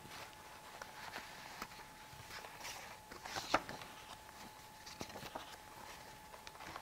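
Soft paper rustles and small clicks as the pages of a book are handled and turned, the loudest rustle about halfway through, over a faint steady hum.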